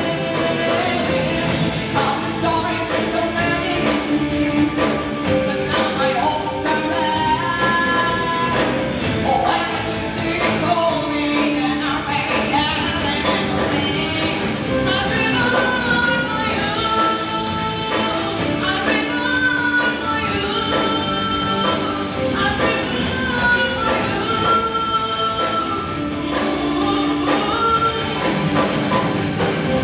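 A woman singing lead into a microphone over a live band of drum kit and keyboard, her melody moving between long held notes over the drums and cymbals.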